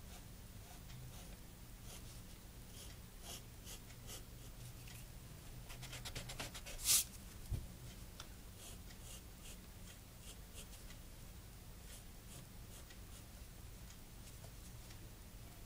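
Pencil scratching on sketchbook paper in short drawing strokes. About six seconds in comes a quick run of strokes ending in one sharp, louder scrape, followed by a light knock.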